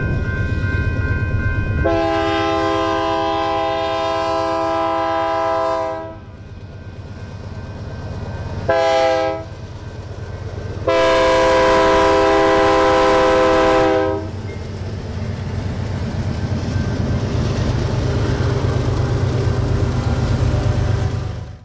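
Diesel freight locomotive horn sounding the grade-crossing pattern, a long blast, a short one, then a long one, as a chord of several notes. Underneath is the steady low rumble of the locomotives and freight cars rolling past, which carries on after the horn stops.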